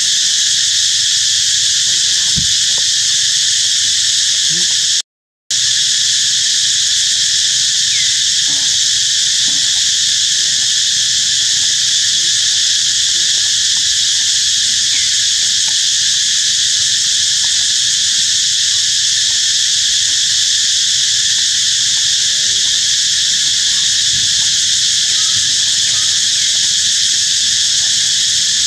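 Loud, steady high-pitched insect chorus, as of cicadas or crickets, with a brief total dropout about five seconds in.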